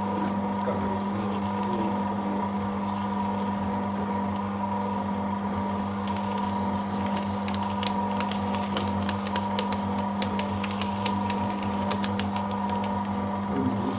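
Paper shredder motor running with a steady hum as it feeds and cuts a long strip of thermal-print ECG paper. From about halfway through, rapid crisp ticks and crackles of the paper being cut join the hum.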